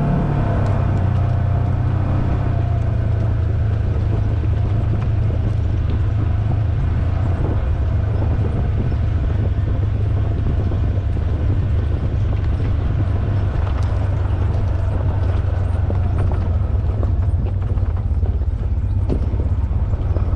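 Polaris General XP 4 side-by-side's engine running steadily as it drives along a dirt trail, with scattered light rattles and knocks.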